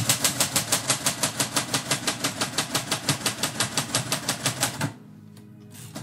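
Typewriter key struck rapidly and evenly, about seven strokes a second for roughly five seconds, then stopping abruptly. It is typing a run of X's over a line to strike it out.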